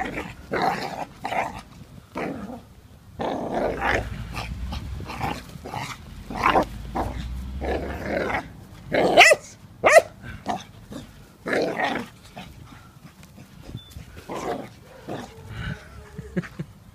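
Cocker spaniel puppy barking and growling in play, a string of short, uneven sounds with the loudest near the middle.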